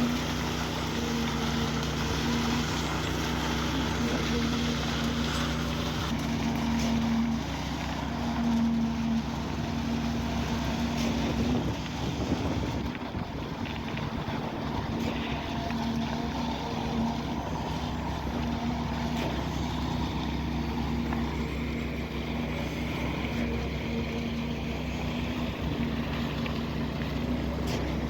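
Heavy machinery engine running at a steady speed, a constant hum with a low drone beneath it.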